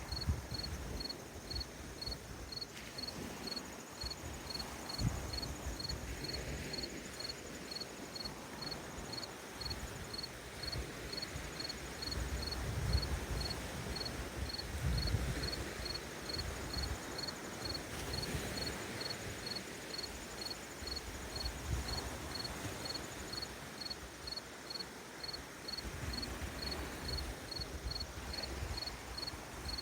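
An insect chirping steadily in a high, even pulse about twice a second. Gentle lake waves wash in low, uneven swells underneath.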